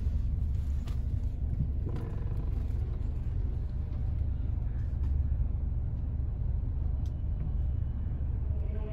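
Steady low rumble of a highway coach, heard from inside its passenger cabin.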